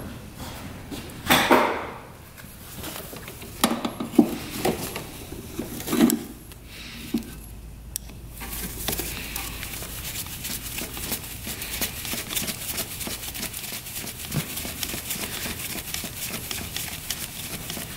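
Screwdriver and gloved hands working at an ATV carburetor: a few sharp metal clinks and knocks, then a steady crackling rustle with many small clicks from about halfway through.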